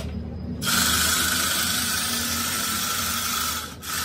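A steady hiss, like air or spray blowing, starting under a second in and stopping about three seconds later, over a low hum.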